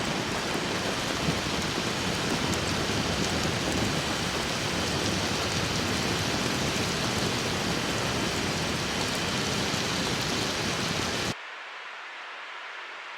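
Steady rushing wind noise on the microphone from riding a recumbent trike downhill at speed. About eleven seconds in it drops suddenly to a much quieter, thinner hiss.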